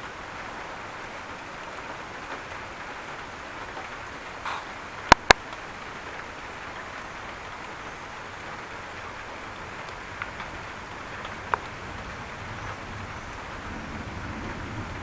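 Heavy rain falling steadily. About five seconds in, two sharp clicks come in quick succession, with a few fainter ticks later. Near the end a low rumble of thunder builds.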